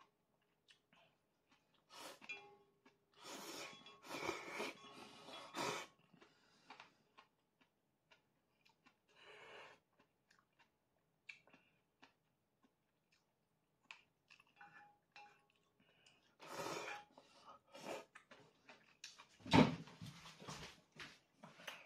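A person slurping ramen noodles from a pot and chewing, in several short noisy bursts with pauses between them. A louder thump comes near the end.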